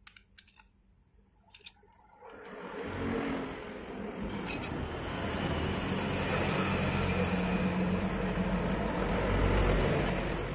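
A motor vehicle's engine going by, the sound building gradually from about two seconds in and loudest near the end. A few faint ticks come before it.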